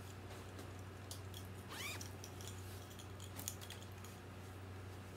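Soft rustling and scattered light clicks of craft supplies being handled and moved, over a steady low hum, with one brief rising squeak about two seconds in.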